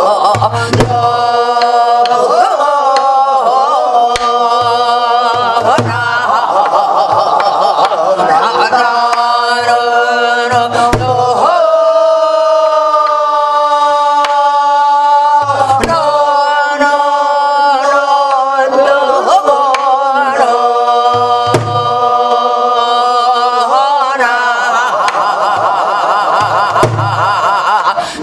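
A woman singing gueum, Korean vocal syllables sung like an instrumental melody, in long gliding lines with one long held note about halfway through. A buk barrel drum struck with a stick marks the rhythmic cycle with a few low thuds.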